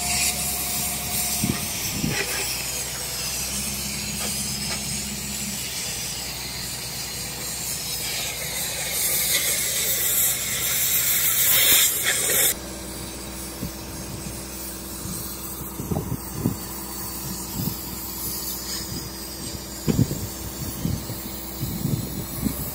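Oxy-fuel cutting torch hissing steadily as it cuts steel, the hiss growing louder before it cuts off abruptly about halfway through. After that, a quieter steady low hum with scattered knocks.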